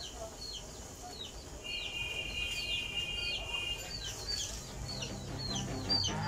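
A bird repeating a short, high, falling chirp, about two a second, with a steady high whistle held for about two seconds in the middle.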